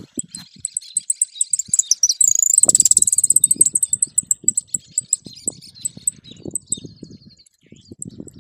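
Caged saffron finch singing: a run of high chips and notes, with a dense fast trill about two and a half seconds in. Low knocking and rustling sounds run underneath for most of it.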